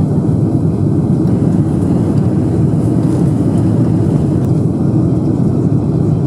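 Boeing 747-400 jet engines and airflow during a takeoff flight, a loud, steady rumble that doesn't change.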